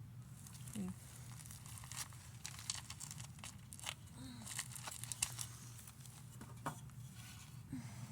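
Irregular crinkling, crackling and scraping clicks of things being handled, over a steady low hum.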